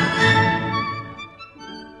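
Instrumental background music: a loud passage of held notes that fades about halfway through into quieter, sparser notes.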